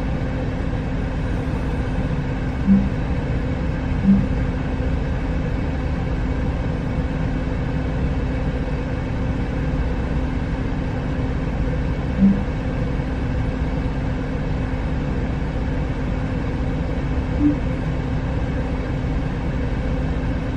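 Steady low rumble of a parked semi truck's engine idling, heard inside the cab, with a constant hum over it. Four short low beeps sound over it: two close together early, one about midway, and a fainter one near the end.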